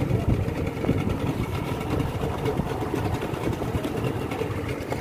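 Outboard motor of a small fishing boat running steadily, a low rumble.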